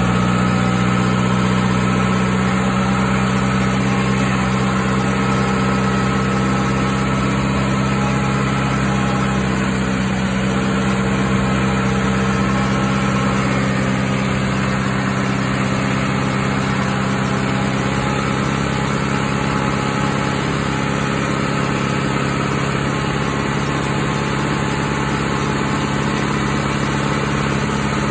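John Deere 2755 tractor's four-cylinder diesel engine running steadily, heard from the operator's seat just behind the exhaust stack.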